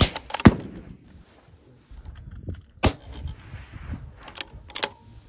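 Bolt-action precision rifle fire on a range: a series of sharp cracks, the loudest about half a second in, one near three seconds and two close together near the end. Some of these may be the metallic clack of a rifle bolt being worked.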